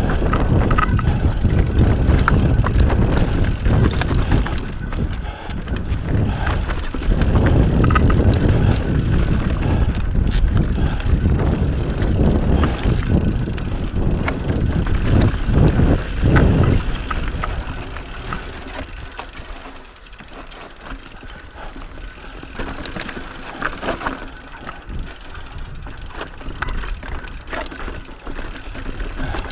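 Mountain bike clattering down a rocky trail: tyres, frame and drivetrain knocking and rattling over stone under a steady low rumble. Loud through the first half or so, quieter and sparser from about two-thirds in, as the going gets smoother.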